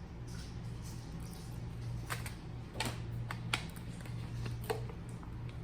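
Sharp mouth clicks and lip smacks from chewing and tasting a bite of spiced bread, irregular and coming several in a row from about two seconds in, over a steady low hum.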